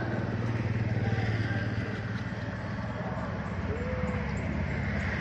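A motor vehicle engine running steadily nearby, a low hum that swells slightly about a second in. A faint short call rises and falls near the end.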